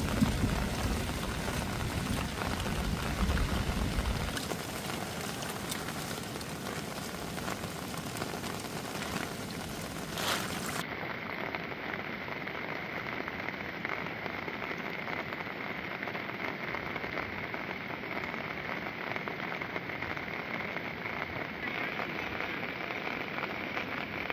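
Heavy rain falling, a steady hiss of drops on surfaces, with a low rumble in the first few seconds. About ten seconds in, the sound changes abruptly to a thinner rain texture with a faint steady high tone.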